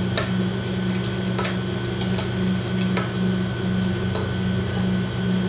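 Metal tongs tossing salad greens in a stainless steel mixing bowl, with a few sharp clinks of the tongs against the bowl, over a steady low hum.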